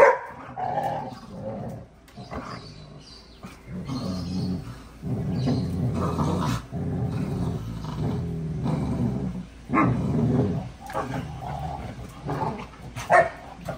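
Two Labrador retrievers play-fighting: low growling that comes and goes in bursts of a second or two.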